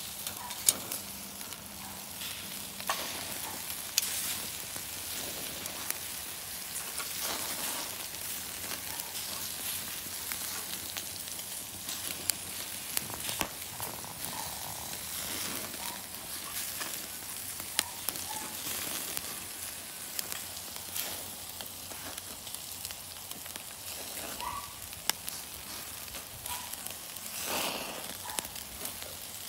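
Pork pieces sizzling on the grate of a charcoal kettle grill: a steady hiss with scattered sharp pops and crackles.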